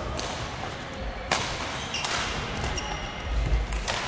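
Badminton play on an indoor court: about four sharp racket hits on the shuttlecock, the loudest about a second in, with thuds of footwork on the court floor and background chatter.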